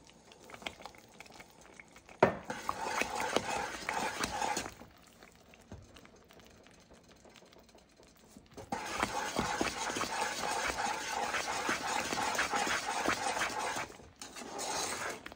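Wooden spatula stirring and scraping around a nonstick pan of butter-sugar caramel base with cream just added, in quick rhythmic strokes. There is a short spell of stirring about two seconds in and a lull, then steady fast stirring from about nine seconds in that stops near the end.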